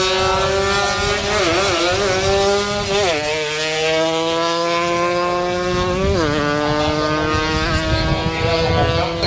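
Yamaha RX two-stroke single-cylinder drag bike accelerating flat out on a quarter-mile run. Its pitch climbs steadily and drops sharply at gear changes about three and six seconds in, then climbs again.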